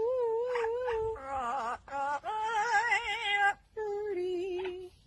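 A bird calling in a run of long, wavering, voice-like notes, each a second or so, with short breaks between them.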